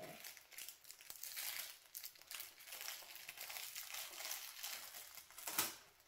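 Thin plastic toy wrapper crinkling and rustling as small hands pull it open and work a sticky toy out of it, with one sharper snap near the end.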